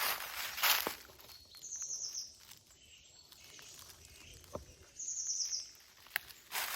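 Footsteps crunching through dry fallen leaves at the start and again near the end. In the quieter stretch between, a bird gives a short, high, rapid trill twice, about three seconds apart.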